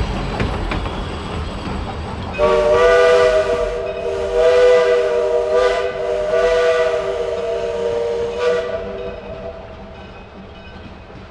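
The steam whistle of No. 25 "Samson", a 1910 Vulcan 0-4-0 steam locomotive, sounds one long blast of several notes together, starting about two seconds in and swelling twice before it dies away. It plays over the rumble and clatter of the passing narrow-gauge train, which fades toward the end.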